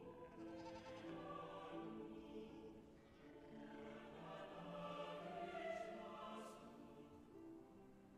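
Orchestral film score led by a wordless choir singing slow, held chords.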